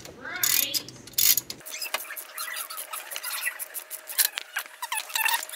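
Socket ratchet clicking and metal tools clinking on a crankshaft pulley bolt as it is worked loose, with a few short squeaks near the end. The sound changes abruptly about a second and a half in.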